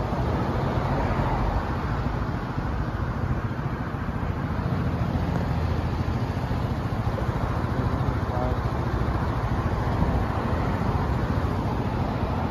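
Steady city road-traffic noise: a continuous low rumble and hiss with no single vehicle standing out.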